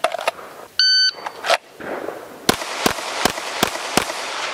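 A shot timer beeps once about a second in. About a second and a half later a semi-automatic pistol fires five quick shots, roughly three shots a second, each followed by echo off the range.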